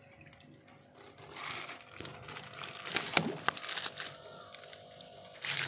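Clear plastic bag of catfish fry crinkling as hands handle it and work the tie at its neck loose, with a few sharp clicks about three seconds in and louder rustling near the end.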